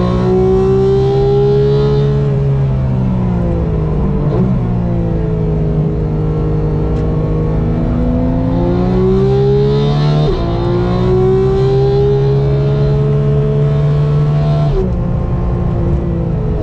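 Sports car engine driven hard on track, its note climbing and falling through the gears with sharp breaks at the shifts, and dropping suddenly near the end.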